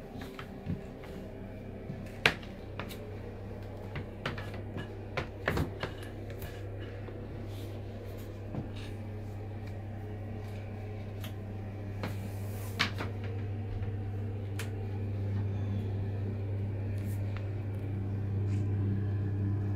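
Canvas sneakers with rubber soles step and scuff on a bathroom tile floor and against a bathtub, giving scattered sharp knocks, most of them in the first several seconds. Under them a steady low hum sets in about a second in and grows slowly louder.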